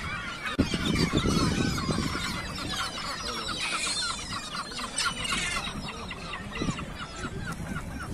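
Many birds calling over one another in quick, short notes.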